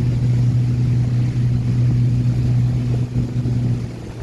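Motorboat engine running at a steady pitch, then dropping away sharply just before the end.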